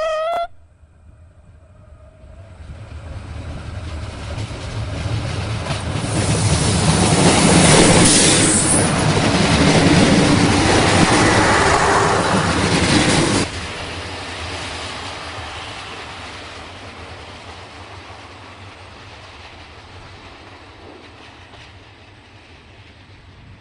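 A brief horn toot at the very start, then a DB regional passenger train passing close at speed: the rush of wheels on rail builds to a peak about a third of the way in, drops off abruptly about halfway through and fades away.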